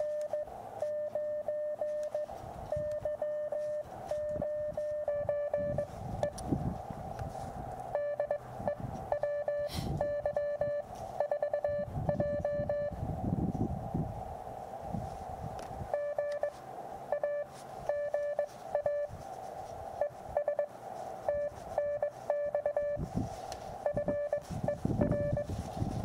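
Morse code (CW) from the Elecraft KX2 transceiver's speaker: a single mid-pitched tone keyed on and off in dots and dashes over steady receiver hiss. Irregular low wind rumble on the microphone runs underneath.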